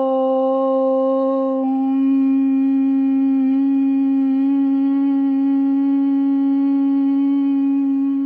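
A woman chanting a long Om on one steady pitch: the open "O" closes into a humming "mm" about a second and a half in, which is then held.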